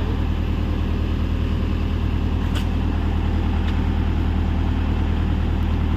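Hyundai 85A excavator's diesel engine running steadily, with two faint clicks about midway.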